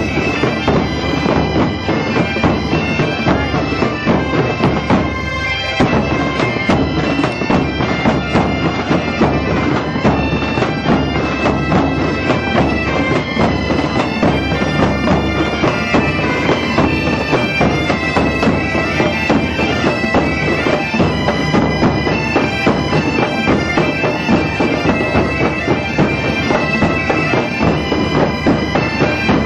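A large band of Galician bagpipes (gaitas) playing a traditional tune together, their drones held steady under the chanters' melody, with rope-tensioned snare drums beating along.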